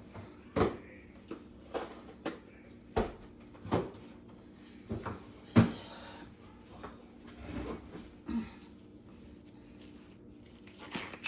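Kitchen handling noise: a scattered series of light knocks and clicks, about a dozen, the sharpest about halfway through.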